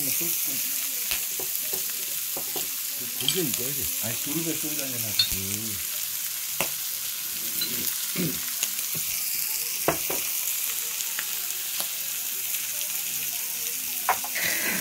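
Food sizzling steadily on a hot grill plate, with a few sharp clicks.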